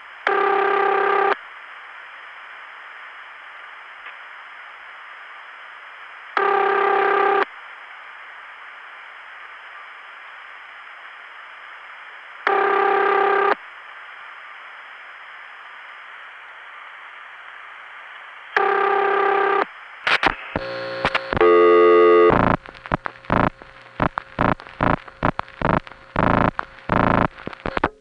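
Hissy long-distance telephone line carrying a buzzy, harmonic-rich ringing tone, about a second on and five off, heard four times: the ringback a caller hears while the far phone rings. About twenty seconds in it gives way to a rapid run of clicks and short tone bursts.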